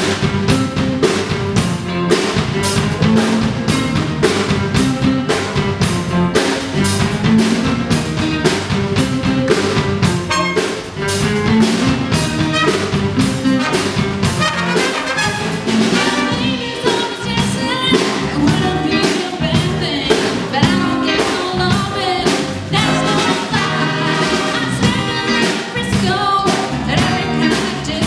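Live band playing over a steady drum-kit beat: saxophones, trombone and electric guitar, with a woman singing.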